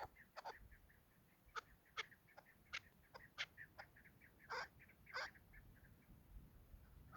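Chukar partridges calling faintly: a rapid run of short clucking notes, with a few sharper, louder notes partway through.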